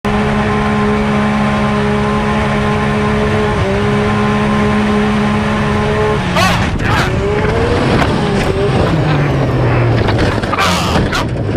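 Race side-by-side's engine running steadily at high speed. About halfway through, the tone breaks off into a series of heavy bangs and crunches as the car hits a cow and rolls over, and the engine pitch falls away.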